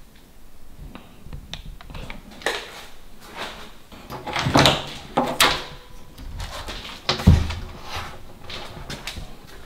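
A door being opened by its round knob: clicks and rattles of the knob and latch around four to five seconds in, then a heavy thump about seven seconds in.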